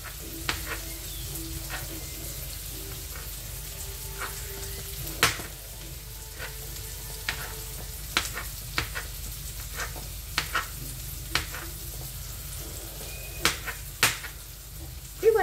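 Knife cutting cooked merguez sausage on a plastic cutting board, sharp irregular knocks as the blade reaches the board, over the steady sizzle of onions frying in a pan.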